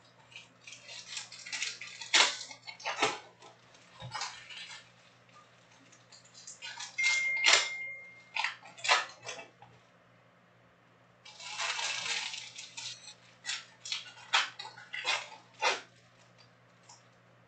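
Foil trading-card pack wrappers being torn open and crinkled by hand, with cards shuffled and handled, in irregular bursts of rustling and crackling with short pauses between them.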